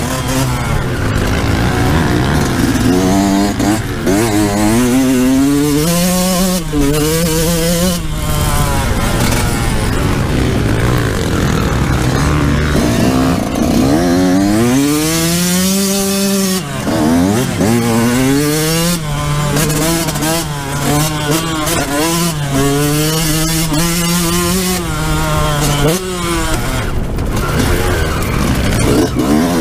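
Yamaha YZ125's 125 cc two-stroke single-cylinder engine revving hard while ridden, its pitch climbing through each gear and dropping again at the shifts and when the throttle is rolled off.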